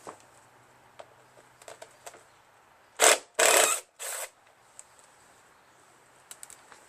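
Light clicks of tools and parts being handled, then about three seconds in three short, loud bursts of harsh noise.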